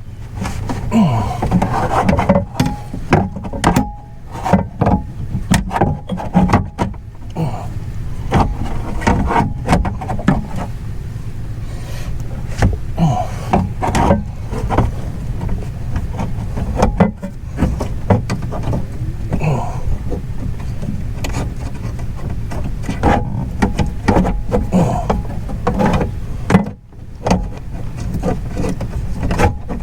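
Irregular clicks, knocks and rattles of hands working the window regulator and glass inside a car door, trying to hook the glass onto the regulator clip, over a steady low rumble.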